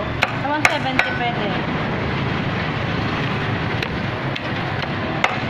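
Cleaver chopping raw chicken: five sharp chops, three in the first second and two more spaced out later, over steady street and traffic noise with voices.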